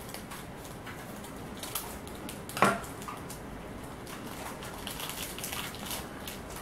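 Crinkling and tearing of a small plastic toy blind-bag wrapper being cut and unwrapped by hand, a run of small crackles and rustles. About two and a half seconds in, the scissors knock once on the wooden table as they are set down.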